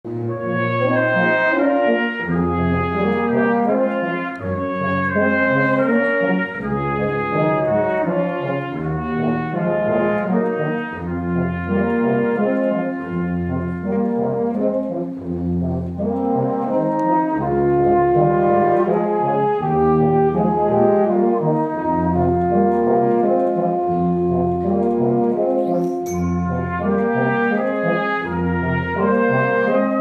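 A fanfare band of brass and saxophones plays a film-music arrangement: full sustained chords over a bass line in the tubas and euphoniums that sounds about once a second.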